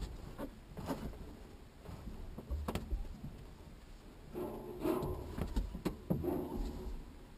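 Faint scattered clicks, knocks and rattles inside a glider cockpit while it waits for a winch launch, with a low rumble underneath. The rattles are busiest from about four and a half seconds in to six and a half.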